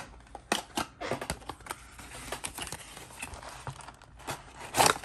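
Cardboard toy box being opened and emptied by hand, with a folded paper insert slid out: rustling, crinkling and scraping of card and paper with many small clicks, loudest near the end.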